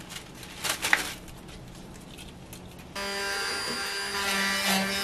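Light handling noises and a click as molokhia leaves are stripped from their stems. About three seconds in, an immersion blender comes in running with a steady, even motor whine, chopping the leaves in a plastic jug.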